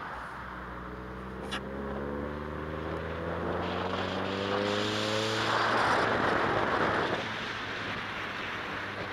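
Mazda MX-5 convertible's four-cylinder engine on the move, rising in pitch under acceleration for a few seconds, then easing back to a steady hum. Midway a loud rush of noise rises over it for about a second and a half, with a single click near the start.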